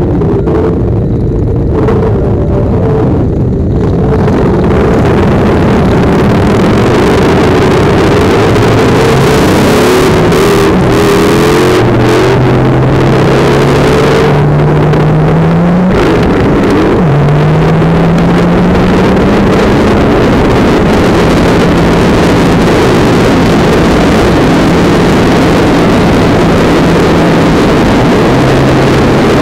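Honda Gold Wing motorcycle pulling away hard from a stop among other idling motorcycles. Its engine pitch climbs, drops sharply at a gear change about 16 seconds in, climbs again, then holds steady at cruising speed. Heavy wind rush on the bike-mounted microphone runs under it all.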